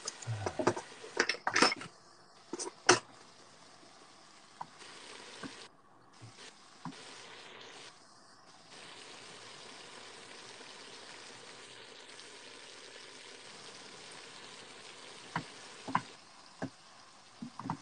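Chunks of veal and lardons sizzling as they brown in a pot. A stirring utensil knocks and scrapes against the pot while the meat is turned, several times in the first three seconds and a few more times near the end.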